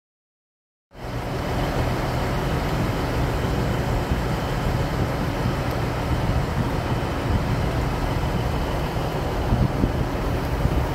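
Steady hum and rumble of an Avanti West Coast Class 390 Pendolino electric train at the platform, cutting in abruptly about a second in.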